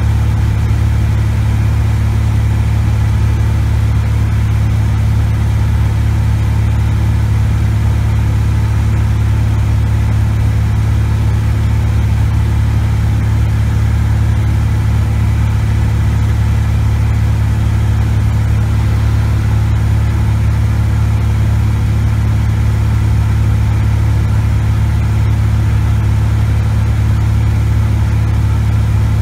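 Cessna 180 Skywagon's six-cylinder Continental O-470 engine and propeller droning steadily in cruise, heard from inside the cabin.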